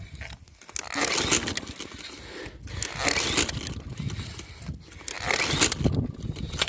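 Lawnmower's recoil pull-starter yanked three times, the engine cranking over without catching.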